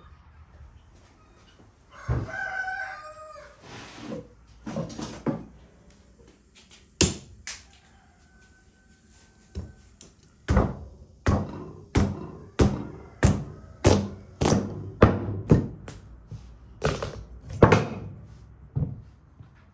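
A rooster crows about two seconds in, followed by a few scattered thuds. From about halfway on there is a steady run of around fourteen heavy knocks, roughly one every two-thirds of a second, as a large kitchen knife is worked down through a whole hard-skinned pumpkin.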